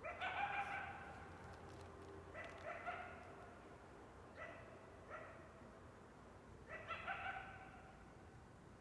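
A coyote calling in a series of about five short, high, pitched calls, each sliding up in pitch as it starts, with pauses of a second or two between them.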